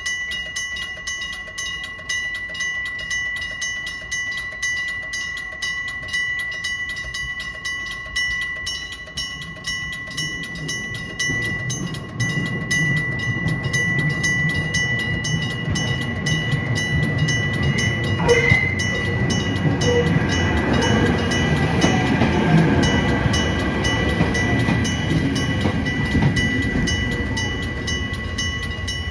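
Electric-bell level-crossing alarm ringing with rapid, even hammer strikes, sounding the whole time. From about ten seconds in, an electric train rumbles up and passes over the crossing, with a short sharp sound about eighteen seconds in.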